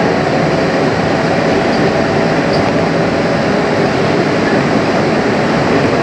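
Steady running noise inside a moving Bombardier Innovia APM 100 people-mover car cruising along its guideway, even and unbroken with no speech. The Innovia APM 100 runs on rubber tyres on a concrete guideway.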